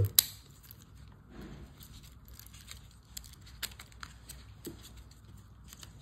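The divot tool of a Victorinox Golfer Swiss Army knife snaps shut with one sharp click just after the start. It is followed by scattered faint clicks and the soft rustle of nitrile-gloved hands handling the knives.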